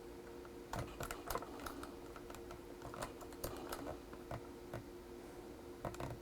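Irregular plastic clicking of computer game controls being worked, some clicks in quick clusters, with a pause before two last clicks near the end, over a faint steady electrical hum.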